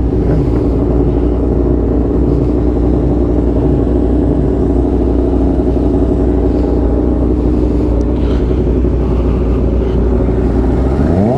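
Kawasaki ZX-6R inline-four sportbike engine running at a steady pitch under heavy wind rumble on a helmet-mounted microphone. Near the end the revs rise and fall once.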